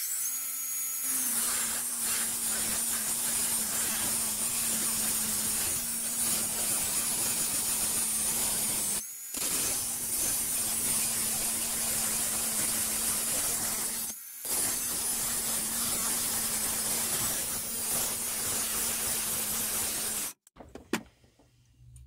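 Angle grinder with a cut-off wheel cutting through the spikes of a metal chainsaw bumper spike, a steady motor whine under the grinding hiss. The sound breaks off briefly twice and stops near the end.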